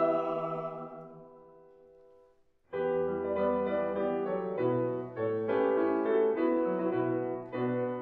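A mixed choir's held chord fading away in the hall's reverberation, then a brief pause. About two and a half seconds in, a grand piano starts up, playing a passage of changing notes.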